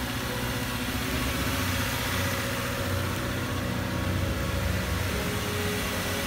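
Car engine idling steadily, a low even hum under a steady hiss.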